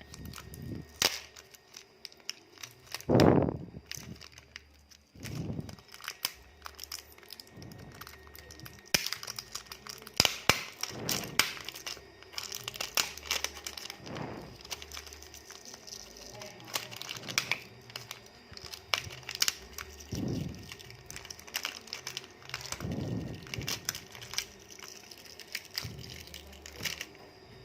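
Small clicks, crackles and scrapes of plastic smartphone parts being handled and pried apart during disassembly, with a few soft thumps. The clicking is busiest in the middle stretch.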